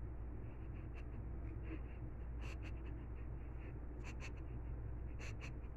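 A cat walking on carpet, its claws catching with a few faint scratchy clicks, mostly in pairs, over a steady low room hum.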